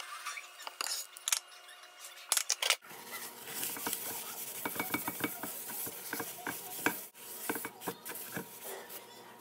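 Paper towel wiped and rubbed around the inside of a cast iron skillet: a continuous rough scrubbing with many small knocks against the pan, starting about three seconds in after a few sharp clicks.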